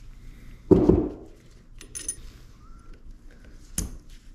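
Steel differential parts handled on a wooden workbench: a heavy thud about a second in, then light metal clinks, and a sharp clink near the end as a bearing carrier is fitted onto the housing.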